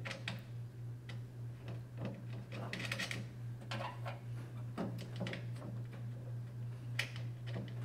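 Scattered light metallic clicks and taps as 10mm nuts are started by hand onto the tailgate handle's studs at the latch, over a steady low hum.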